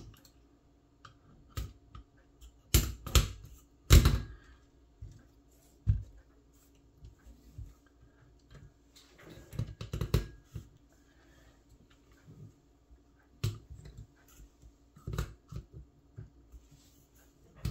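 Scattered clicks and knocks of metal and plastic as a copier fuser's lower pressure roller, with its end bearings and drive gear, is set into the fuser's sheet-metal frame. The loudest knocks come about three and four seconds in.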